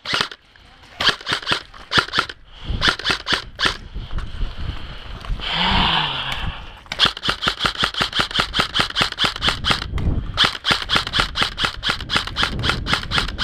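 Airsoft guns firing full-auto: a few short bursts at first, then two long, rapid strings of shots from about seven seconds in.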